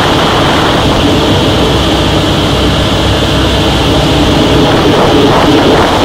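Loud, steady drone of a Nanchang warbird trainer's radial engine and propeller, heard from inside the cockpit.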